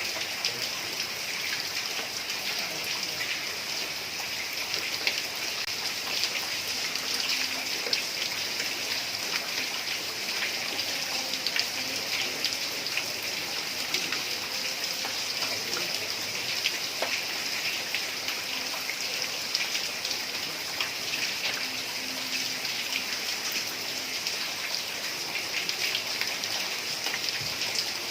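Heavy rain falling steadily on a tiled roof: an even hiss full of fine, close drop ticks.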